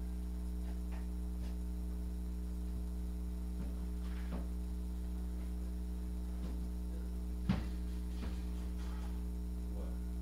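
Steady low electrical mains hum, with a few faint scattered bumps and one sharper knock about three-quarters of the way through.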